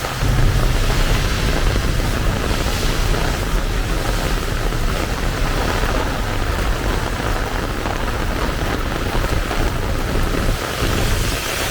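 Heavy rain pouring steadily, with a deep, continuous rumble underneath.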